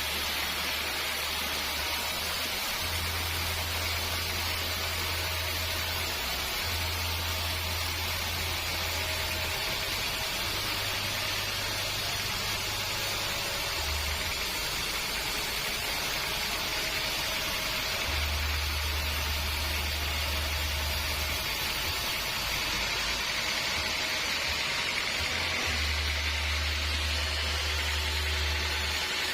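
Sawmill machinery running steadily: a constant hiss with a faint hum and a low rumble that comes and goes.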